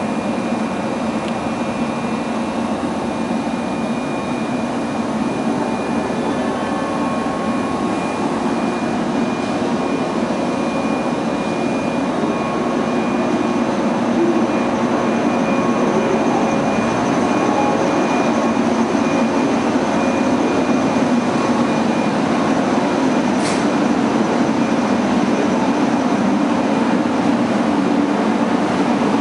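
A 415 series electric train standing at a platform, its onboard equipment giving a steady electrical hum with a thin high whine above it. The hum grows a little louder about halfway through, and there is a single short click near the end.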